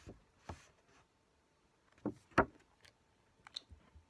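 A few soft knocks and clicks from handling a small boxed liquid lipstick, the loudest about two and a half seconds in, with a few lighter ticks near the end.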